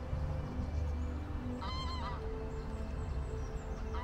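A water bird calling: a short wavering call, once about two seconds in and again at the very end, over a steady low rumble.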